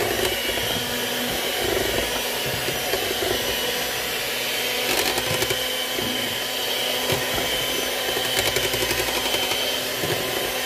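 Electric hand mixer running steadily at one speed, its beaters churning through thick chocolate cake batter, with a steady high whine from the motor.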